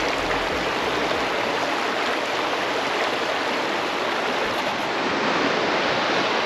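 Fast water rushing steadily down the boat chute of a river weir.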